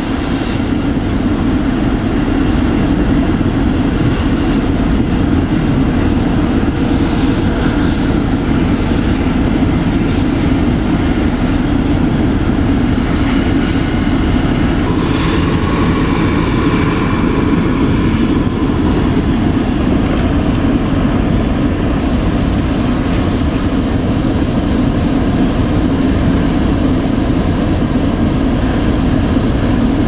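Steady, loud blizzard wind noise with a constant low drone, likely from vehicle engines such as plow trucks. A faint whine rises over it in the middle stretch.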